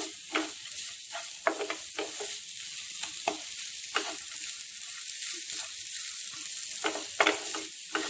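Wooden spatula stirring and scraping flattened rice with banana pieces and grated coconut around a nonstick frying pan, in irregular scrapes and taps, over a steady sizzle from the pan.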